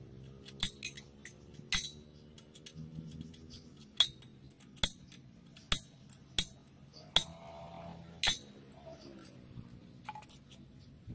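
Sharp metallic clinks and knocks, about eight of them spread over ten seconds, as a homemade welded metal chainsaw mill frame is handled and fitted onto a chainsaw's bar. A faint low hum runs underneath.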